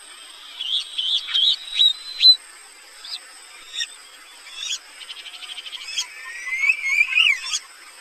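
Rainforest birds calling: a run of short chirps, then a quick rattling series of notes, then a rising whistled call near the end, over a steady high-pitched drone.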